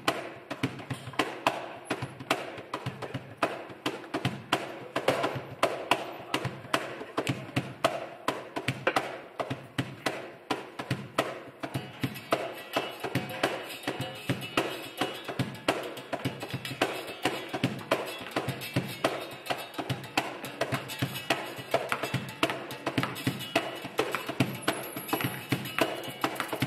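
Group hand percussion on wooden boxes played like cajóns: a dense, steady rhythm of slaps and taps, with a berimbau twanging along.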